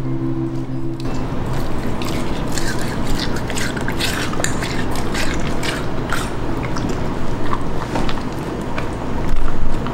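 Beagle crunching and chewing watermelon close to the microphone: a dense run of crisp, wet crunches and smacks, loudest near the end. Guitar music fades out about a second in.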